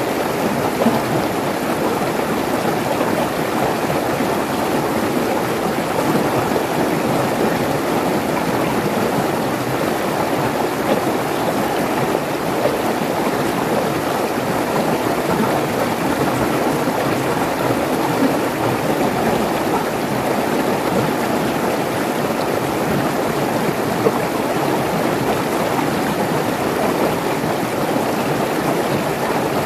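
Mountain stream running fast over rocks, a steady rushing and splashing of water through small cascades.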